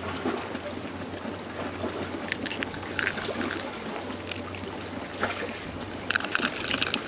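Outdoor sea-shore ambience: wind on the microphone and water noise over a steady low hum, with scattered light clicks and a brief louder rush of noise about six seconds in.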